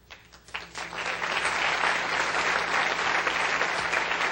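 Audience applauding: a few scattered claps that swell within the first second into steady, full applause.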